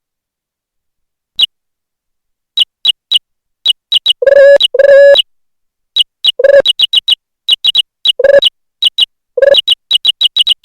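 Jingle Keyboard key-press sound effects played through the computer: short high electronic chirps at an irregular typing pace, mixed with a few longer, lower tones, starting about a second and a half in.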